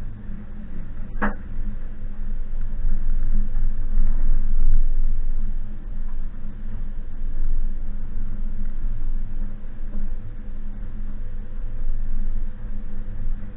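2019 Suzuki Jimny on the move, its engine running under a steady low rumble from the vehicle, with a single sharp knock about a second in.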